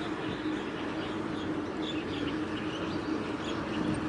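Steady low drone with a constant hum, and faint bird chirps scattered over it.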